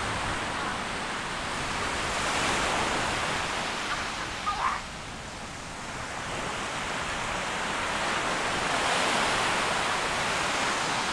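Small ocean waves breaking and washing up a sandy beach. The wash swells twice, about six seconds apart. A brief short sound comes about four and a half seconds in.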